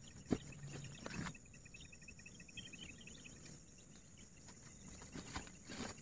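Faint outdoor ambience in scrub: a sharp snap about a third of a second in and another about a second in, then a short, rapid, high-pitched trill of evenly spaced notes lasting about a second and a half, over a steady faint high hiss.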